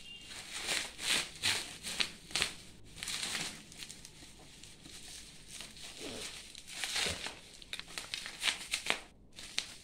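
Plastic bubble-wrap packing crinkling and crackling in irregular bursts as it is pulled off and handled, with a quieter stretch near the middle.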